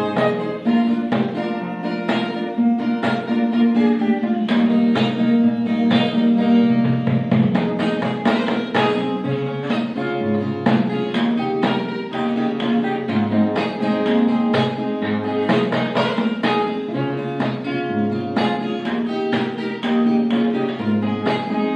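Instrumental background music with plucked and bowed strings, many short note attacks over held notes, at a steady level.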